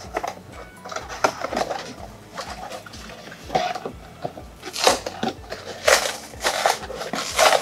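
Paperboard box being pulled apart along its glued seams: a series of crackling rips and rustles, with the sharpest rips about five and six seconds in.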